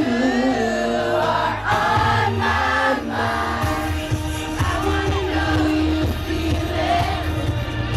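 Pop song performed live: a male singer's amplified voice over a backing track with a steady bass line, with crowd voices behind.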